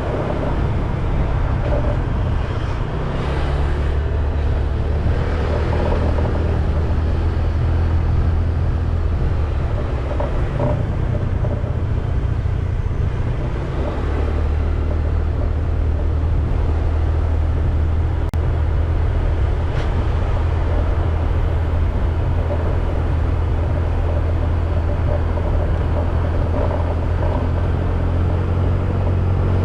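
A motorcycle riding along a road: a steady low rumble of wind on the microphone and the engine running, with road noise.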